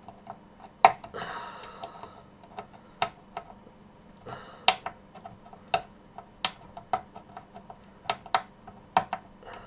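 Irregular sharp clicks and taps from a circuit board and its metal shield being handled by hand, with a brief rustle about a second in.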